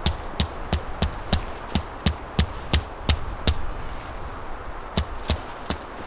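A tent stake being hammered into the ground: quick, even strikes about three a second, a pause of about a second and a half, then a few more blows near the end.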